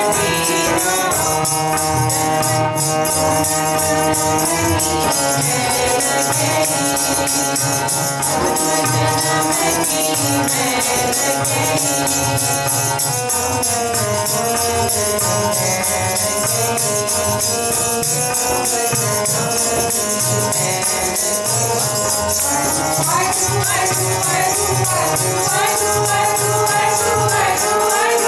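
Sikh keertan: hymns sung to harmonium, over a steady beat of drum and jingling metal percussion.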